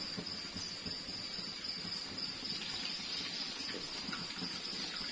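Hot oil sizzling steadily around gulab jamun frying in a wok, a fine even crackle.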